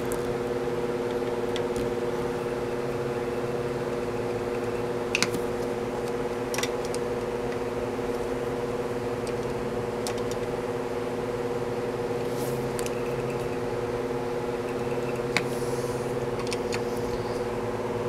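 Steady machine hum, like a running fan or motor, with a few light metal clicks of hand tools on the engine's valve adjusters.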